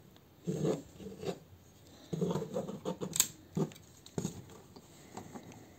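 Hard plastic parts of a transforming-robot combiner toy being handled and pressed together: irregular rubbing and scraping, with a few sharp clicks a little past three seconds in as the leg piece tabs into the torso.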